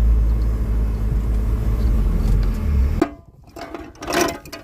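Open-type buggy driving over rough ground, its engine and travel making a steady low rumble. About three seconds in this cuts off suddenly and gives way to a few sharp metallic clicks and rattles.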